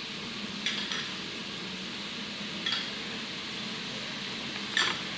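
Onion, leek, celery and carrot sizzling gently in butter in a pan, sweating without colour, while flour is spooned in. A metal spoon clinks three short times, the loudest near the end.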